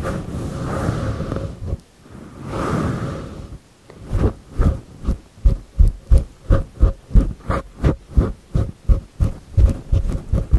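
Hands rubbing against a furry microphone windscreen, then patting it in a steady rhythm of about three soft thumps a second from about four seconds in.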